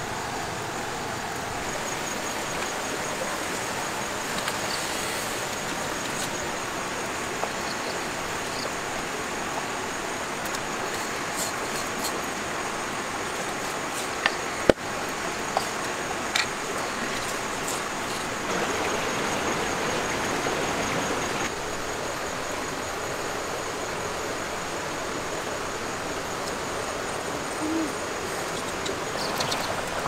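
Open wood fire burning under a cooking pot: a steady hiss with a few sharp crackles of the burning wood, loudest about halfway through.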